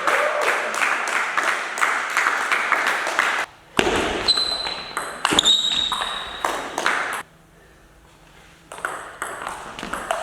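Table tennis ball clicking off bats and table in a quick rally, then after an abrupt break more scattered ball hits with a couple of short high squeaks, and a brief near-silent gap before the hits resume.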